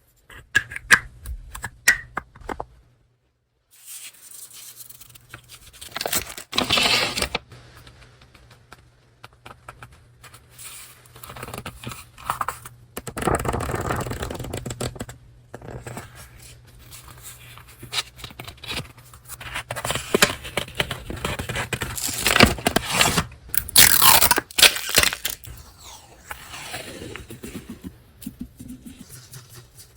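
Paper and packaging being handled and opened by hand: irregular rustling, scraping and tearing of paper, with scattered light taps and clicks.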